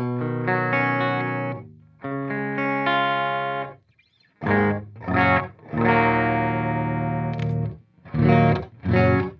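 Electric guitar played through a Stewmac Lightcycle Phasor II, a kit-built clone of the Mu-Tron phaser, into a Mesa Boogie Badlander amp. Ringing chords, a brief stop a little before the middle, two short chord stabs, a long held chord, then a few quick stabs near the end.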